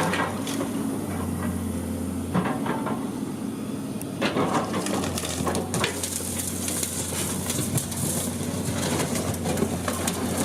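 Building demolition: a heavy machine's engine running steadily, with repeated crunches and knocks of breaking debris, the biggest about 2.5 s and 4–6 s in.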